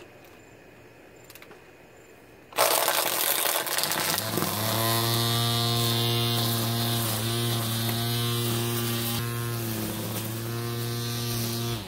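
Ryobi One+ 18-volt cordless string trimmer starting up a couple of seconds in with a loud burst of line noise, then running with a steady electric hum while cutting grass. It dips briefly in pitch twice and cuts off near the end.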